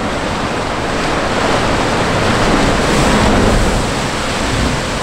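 Ocean surf rushing against a rocky shore: a steady, loud wash of sea noise that swells a little about two to three seconds in.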